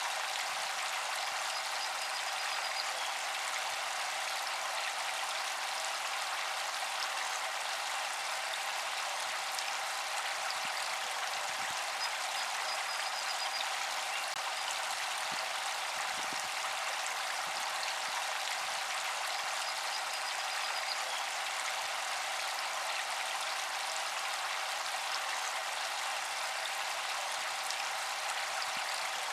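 Small solar fountain spraying water that splashes steadily back onto the water surface, an even patter of falling droplets. A faint steady tone runs underneath.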